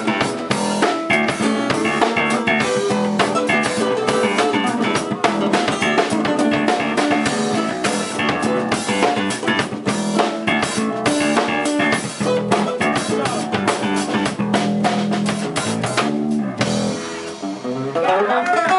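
Live band playing an instrumental passage without vocals: electric bass, two guitars (one an acoustic-electric) and a drum kit keeping a steady beat. About sixteen seconds in, the drum hits stop and the guitars and bass carry on ringing.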